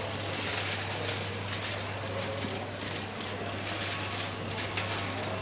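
Metal shopping cart rolling over a tiled supermarket floor, its wheels and wire basket rattling, over a steady low hum.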